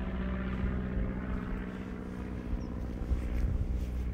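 Steady, low droning engine hum from a distant motor, with a low rumble of wind on the microphone beneath it.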